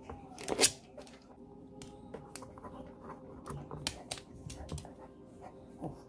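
Small dog pawing and scratching under a kitchen cabinet: claws clicking and scraping on the wood floor and cabinet base in irregular bursts, with one sharp knock about half a second in.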